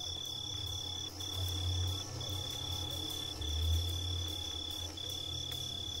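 High-pitched insect trilling at night, a steady tone in long trills broken by brief gaps every second or so, over a low swelling music drone.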